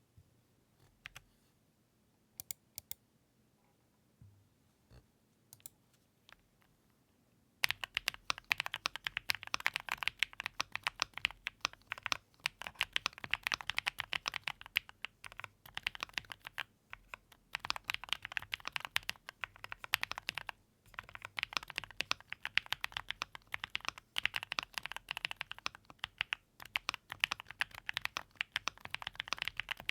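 Typing on a Keychron mechanical keyboard: a few scattered keystrokes, then fast, continuous typing from about a quarter of the way in.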